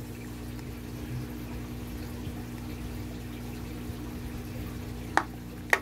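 Aquarium running: a steady pump hum with water bubbling in the tank. Two short clicks near the end.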